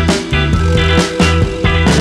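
Background music: a rock-style song with held instrumental notes and a steady beat.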